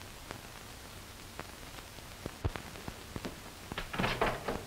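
Steady hiss of an old film soundtrack, with scattered clicks and crackle. Near the end comes a short noisy rustle.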